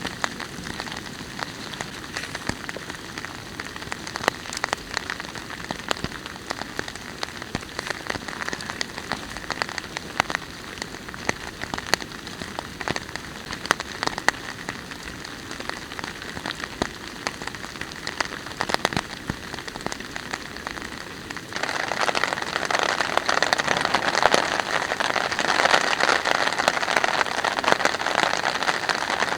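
Rain falling, with many separate drops tapping close by. About three quarters of the way through, it suddenly becomes louder and denser.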